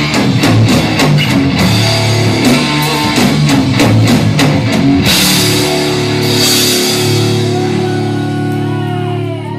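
Live rock band playing loud, with rapid drum hits and electric guitar; about halfway through, a crash of cymbals over held chords.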